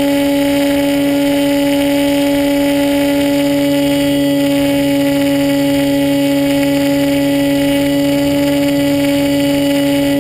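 Radio-controlled model plane's motor and propeller running at a constant pitch, heard from on board the plane, with a steady rush of air noise underneath.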